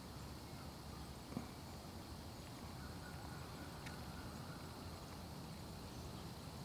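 Faint low rumble of handheld camera handling, with one light click about a second and a half in.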